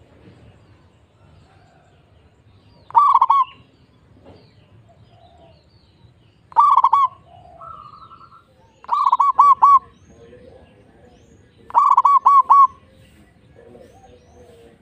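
Zebra dove (perkutut) singing its cooing song: four short phrases about three seconds apart, each a quick run of two to four rolling notes, the later phrases with more notes.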